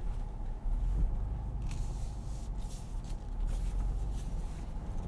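Low, steady rumble of a Ford Bronco's 2.7-litre EcoBoost V6 and drivetrain, heard from inside the cabin while it creeps over rough off-road ground in four-high, with a few faint clicks.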